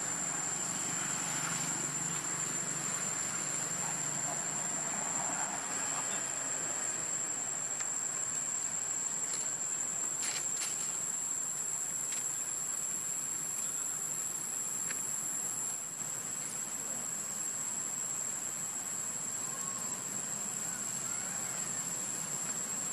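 Steady high-pitched insect drone, a single shrill tone held without a break, with a few faint clicks about ten seconds in.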